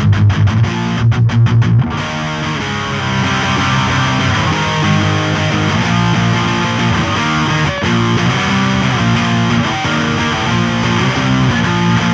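Heavy distorted electric guitar music. For the first two seconds the riff comes in short stop-start chugs with brief gaps between them, then it runs on as continuous dense riffing.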